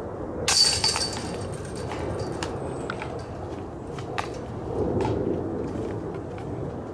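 A disc striking the chains of a disc golf basket: a sudden metallic crash and jingle about half a second in that rings for over a second, then a few light clinks.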